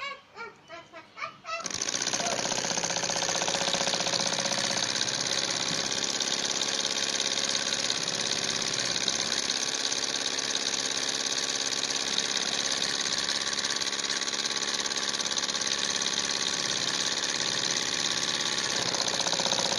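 Small model Stirling engine running fast with a steady, rapid mechanical clatter that starts about two seconds in.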